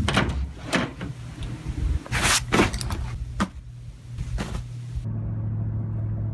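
A car running, heard from inside the cabin as a steady low hum, with several sharp clicks and knocks in the first four and a half seconds.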